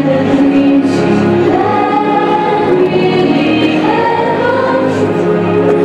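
Choral music: a choir singing long, held notes over instrumental backing, with the melody rising about two seconds in and again near four seconds.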